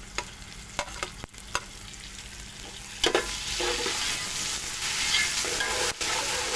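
Ginger-garlic paste going into hot ghee with fried onions in a metal pot. There is a quiet hiss with a few light clicks at first, then about three seconds in a much louder sizzle as the paste is stirred through the oil with a slotted metal spoon.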